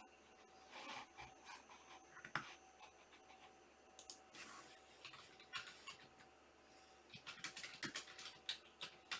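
Faint handling sounds: scattered sharp clicks and short scratchy rustles, with a quick run of clicks near the end.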